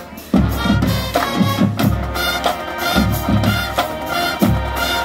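A marching band's brass and drums playing a loud, rhythmic stand tune, with horn chords over regular drum hits. It comes back in hard after a very short break right at the start.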